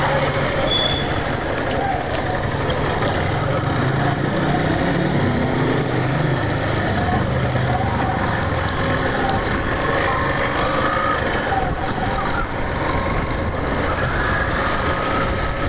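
Yamaha Factor 150 motorcycle under way, its single-cylinder four-stroke engine running steadily with the pitch shifting a little, under constant wind noise on the helmet microphone.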